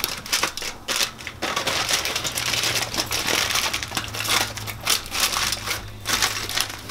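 Aluminum foil crinkling and crackling as hands press and tuck it down around the edges of a baking pan. The crinkling runs nearly without a break, easing off briefly about a second in and again near the end.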